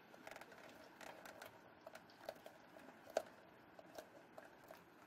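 Faint, scattered clicks and light taps of fingers handling and pressing a glued leather stripe onto a sneaker's leather upper, with one sharper click about three seconds in.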